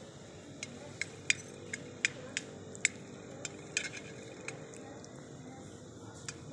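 A hen pecking feed from a stainless steel bowl: about a dozen sharp, irregular clinks of beak on metal.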